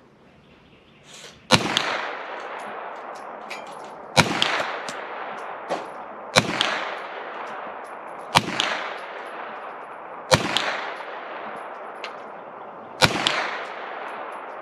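Kel-Tec 9mm carbine firing six single shots about two seconds apart, each report trailing off in a long echo.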